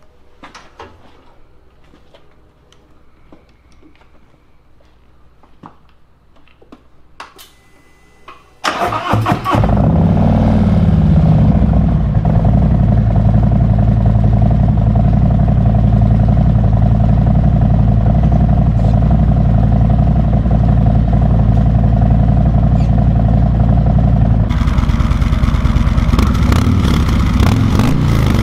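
A few seconds of faint clicks, then about nine seconds in the Milwaukee-Eight V-twin of a 2019 Harley-Davidson Street Glide fires up through freshly fitted Mutazu 4-inch megaphone slip-on mufflers, blips once and settles into a loud, steady idle. In the last few seconds the sound changes to the same bike on its stock mufflers, with the revs rising and falling.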